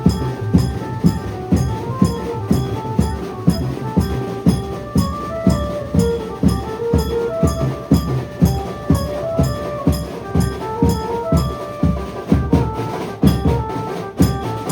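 Maharashtrian banjo-party band music: a loud, fast, steady drum beat under a melody line that steps up and down.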